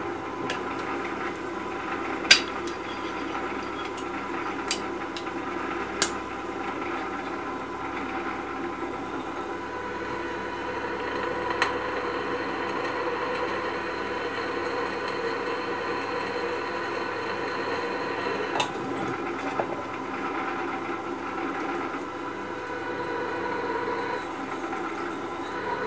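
Pillar drill running, its bit cutting a hole through a metal base plate with a steady whirring hum. A few sharp metallic ticks break in now and then.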